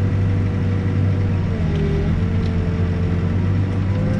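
Backhoe's diesel engine running steadily, its pitch sagging briefly about a third of the way in and then recovering.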